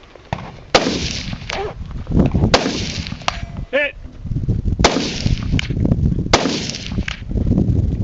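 Four gunshots, about one and a half to two seconds apart, each with a brief echo trailing off.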